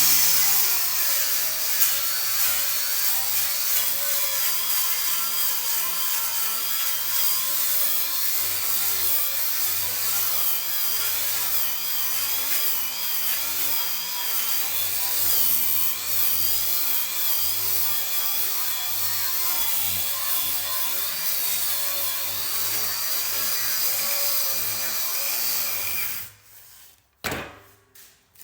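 Angle grinder fitted with a strip disc running against the rusty steel top of a welding table, stripping off rust; the motor's pitch wavers as the disc is pressed and eased. It winds down and stops about 26 seconds in.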